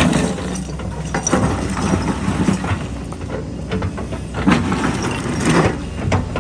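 Excavator diesel engine running steadily under many irregular knocks, clanks and scrapes of concrete rubble being worked.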